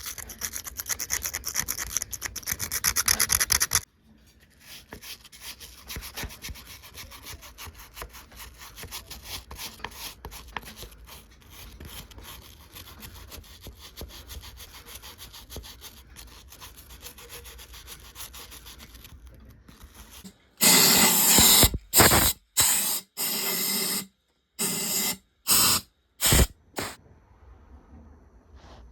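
A stiff brush scrubbing the oily, grimy casing of a Rover SD1 V8 engine in rapid back-and-forth strokes, loud for the first few seconds and then quieter. Near the end comes a run of loud noisy bursts that start and stop abruptly.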